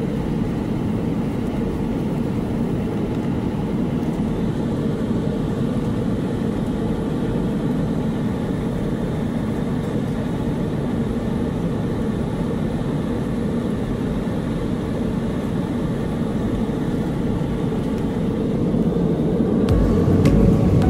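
Steady cabin noise of a Boeing 747-400 in flight, its four GE CF6-80C2 engines and the rushing air heard from inside the cabin as an even, low rush with a faint hum. It swells slightly near the end.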